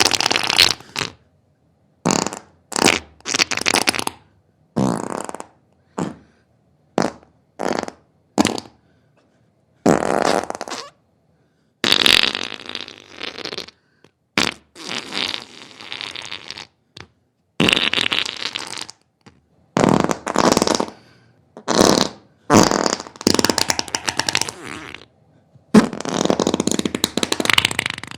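A long series of separate farts, some short blasts and some drawn out for a second or two, with brief silences between them.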